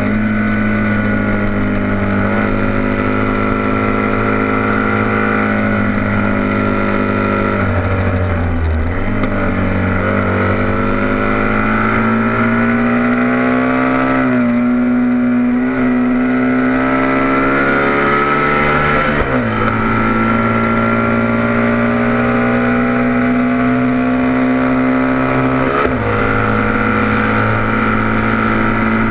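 Vintage racing motorcycle's engine heard from on board, running hard at high revs. A third of the way in the revs sag and then climb again through a corner, and later the engine pitch drops sharply twice, as on upshifts down the straight.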